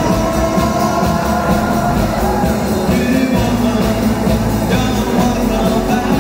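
Live rock band playing: electric guitars over bass guitar and a drum kit, heard through the stage PA. The bass gets heavier about halfway through.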